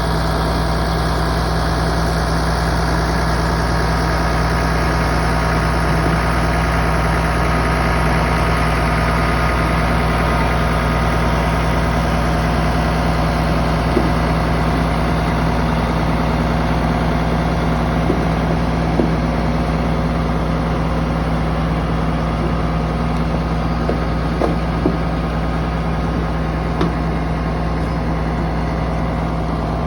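The engine of harvest machinery runs at a steady, unchanging speed throughout, with a few light knocks over it.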